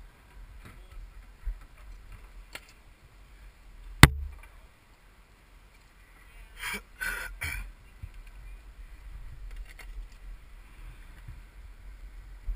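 Close handling noise: one sharp knock about four seconds in, then a few bursts of rustling and scraping, over a low steady rumble.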